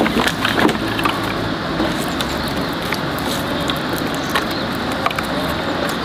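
Dry twigs and vines cracking and rustling as they are pulled and broken off a pile of dead wood by hand, with a cluster of sharp snaps in the first second and scattered ones after.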